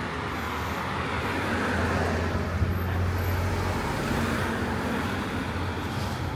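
Street traffic, with a motor vehicle's engine passing close by: its low hum grows louder to a peak about two seconds in, then fades slowly.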